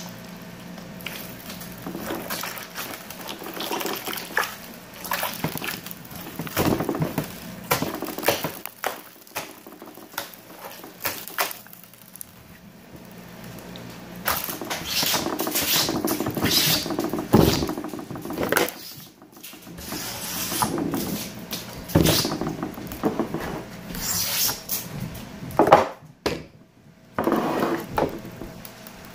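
Hands squeezing and kneading a lump of pink slime, making irregular squishes and crackles.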